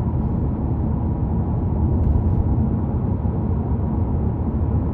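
A steady low rumble, loud and even throughout.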